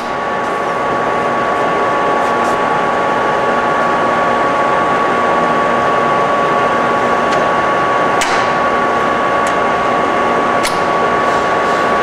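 Warner & Swasey 1A saddle-type turret lathe, driven by its 15/30 hp two-speed motor, running under power. It gives a steady gear hum and whine made of several held tones, the strongest a high whine. A couple of light clicks come about eight and ten and a half seconds in.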